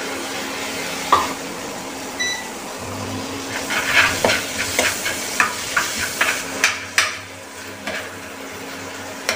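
Tomato purée sizzling in hot oil and fried spices in a nonstick kadai, with a slotted spatula stirring and scraping against the pan: a steady sizzle, a single sharp click about a second in, and a run of quick clicks and scrapes from about three and a half to seven seconds in.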